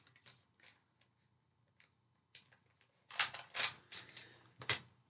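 Groceries being handled on a table: a few faint taps, then a burst of rustling and knocks about three seconds in as she reaches for the next item.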